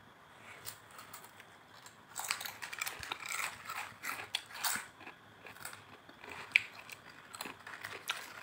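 Potato chips crunched while being chewed, mixed with the crinkle of a foil chip packet as a hand goes in for more; irregular crackly bursts, busiest from about two to five seconds in.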